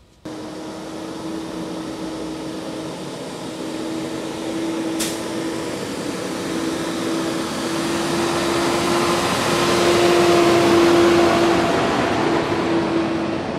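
City garbage truck driving up and passing close, its engine running with a steady drone that grows louder as it nears. There is a brief sharp click about five seconds in.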